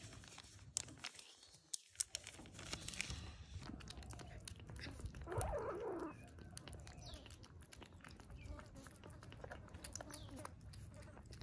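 A one-month-old kitten eating wet cat food from a plastic bowl: faint, quick wet chewing and smacking clicks. For the first few seconds a small plastic medicine bag is handled, and about halfway through there is a short call.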